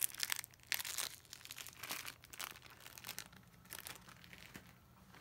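Clear plastic packaging crinkling as it is handled, in irregular bursts that are busiest over the first couple of seconds and thin out to a few fainter rustles later.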